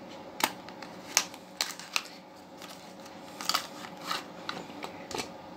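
A small cardboard box being opened by hand and a coiled thermometer sensor wire pulled out of it: scattered light clicks and rustles of card and cable over a faint steady hum.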